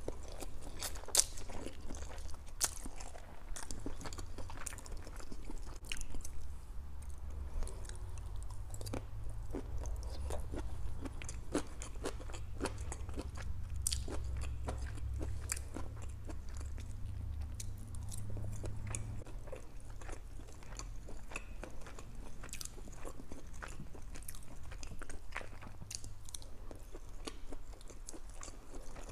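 Close-miked chewing and biting of lo mein noodles and fried chicken, with many short crunchy clicks.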